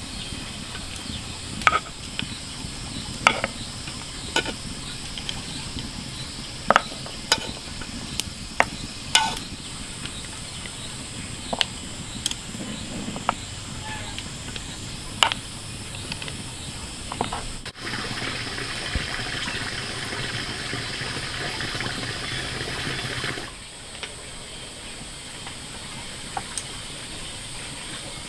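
Hard snail shells clicking against one another, the chopsticks and a wooden plate as cooked stuffed snails are picked out and laid down, a dozen or so sharp separate clicks over a steady hiss. About two-thirds of the way through, a louder steady hiss sets in for some five seconds, then drops back.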